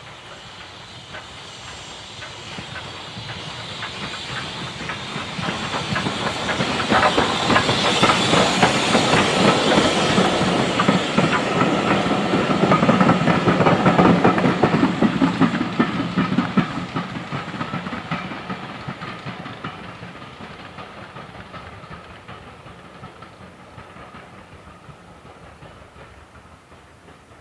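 Steam train passing close by: the locomotive's steam hiss and the coaches' wheels clicking over the rail joints, growing louder to a peak about halfway through, then fading away as the train moves off.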